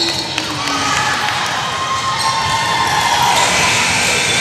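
Basketball being dribbled on a hardwood gym floor amid the general noise of a game in progress, with a few hand claps near the start.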